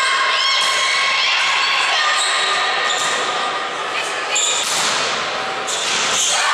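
Girls' volleyball rally: the ball struck with sharp slaps, several times over, shoes squeaking on the wooden gym floor, and players' and spectators' voices calling out, all echoing in the large hall.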